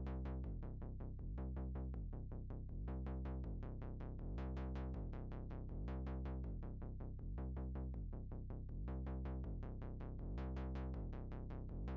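Electronic background music: a low synth bass changing note about once a second under a steady ticking beat.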